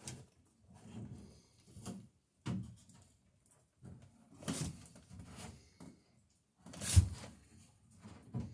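Workshop handling sounds: irregular wooden knocks and rustling as wood and tools are moved about, with one sharper, louder knock about seven seconds in.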